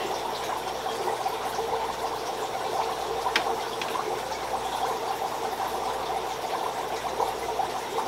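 Steady trickle of running aquarium water.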